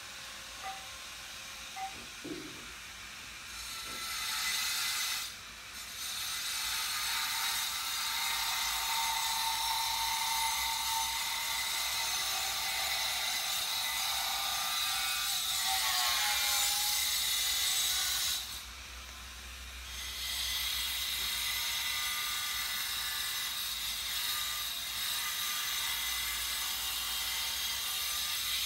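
Senators thumping their desks in approval, a dense continuous rattle of many rapid knocks, heard through a television's speaker. It starts about four seconds in and drops away briefly twice.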